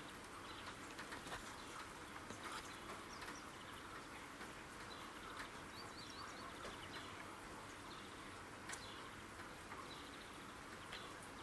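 Rain falling, a faint steady hiss with occasional drops ticking and a few bird chirps.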